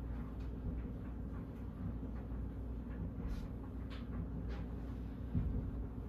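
Banvil/Envirofan Silver Line industrial ceiling fan slowly spinning down, with a steady low hum and a few faint ticks.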